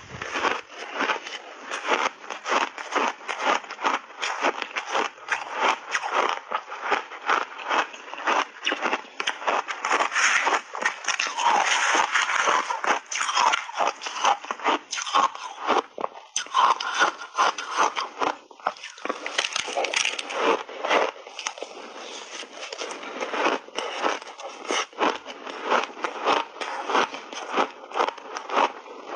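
A person chewing big mouthfuls of crunchy shaved ice, close to the microphone: rapid, continuous crunching at several crunches a second, with a brief break a little past the middle.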